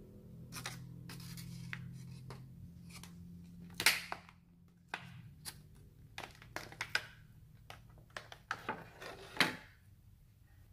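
Thin clear plastic sandwich-wedge container being opened and handled: irregular crinkles and clicks of the plastic, loudest twice, a little before halfway and again near the end.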